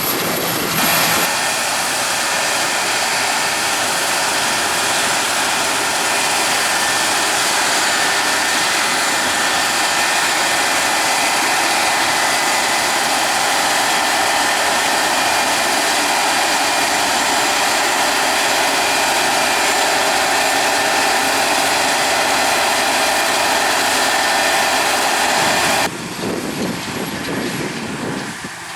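Large farm harvest machinery running steadily up close: a dense engine drone with several steady whining tones. The sound changes abruptly about a second in, and again near the end, where it drops quieter.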